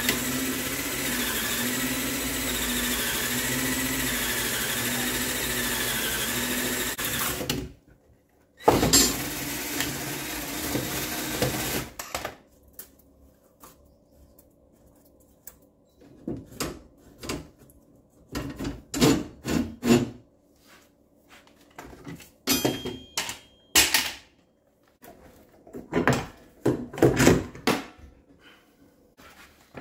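Electric drill boring a hole through a wooden 4x4, its motor pitch sagging and wavering under load, in one long run of about seven and a half seconds and a second, shorter run after a brief stop. After that come scattered knocks and taps.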